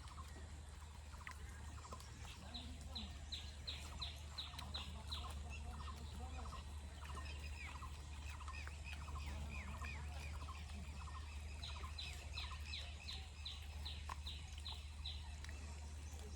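Several wild birds calling. One repeats short high notes about three times a second, in two runs, with scattered chirps from others among them.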